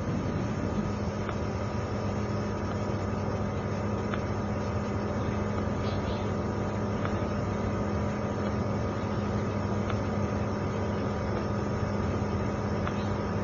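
Steady interior noise of a 20-series sleeper coach: an even rumble with a low steady hum and a fainter higher tone, and a few faint scattered ticks.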